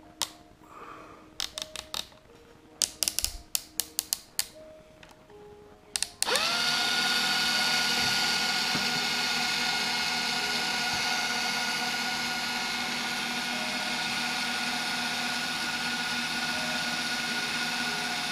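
A series of sharp clicks as the electric drill is handled. About six seconds in, its motor spins up quickly and then runs steadily at constant speed, turning a section of fishing rod held in the chuck.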